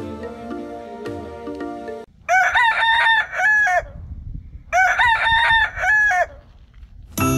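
Background music fades out, then a rooster crows twice, the two crows looking alike on the spectrogram, before music starts again near the end.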